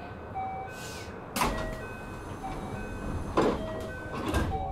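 Inside a JR West 321 series electric train: three heavy thuds, about a second and a half, then a second apart, with sliding-door noise, over a faint string of short high notes like a chime.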